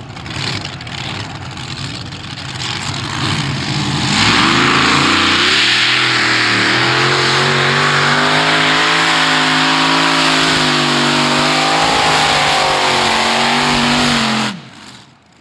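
Engine of a Modified-class pulling tractor, lower and uneven at first, then going to full throttle about four seconds in. It holds a loud, steady, slightly wavering note under load for about ten seconds, then cuts off suddenly near the end.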